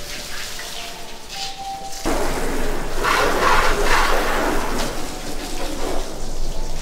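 Water from a plain garden hose, not a pressure washer, spraying and splashing onto a car's bodywork and rear glass while it is rinsed. The spray gets louder about two seconds in.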